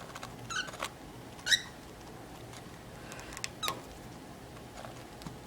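Cockatiel giving a few short, high chirps, the loudest about a second and a half in, with a few faint clicks later on.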